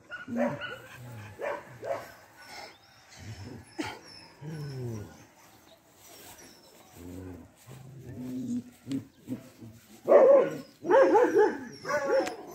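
Dogs barking at intervals, with the loudest run of barks about ten seconds in.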